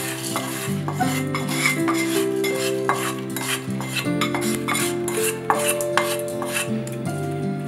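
A spatula scraping and knocking fried, crisp Maggi noodles out of a kadai into a bowl: repeated scrapes and clinks of the spatula on the pan. Background music plays underneath.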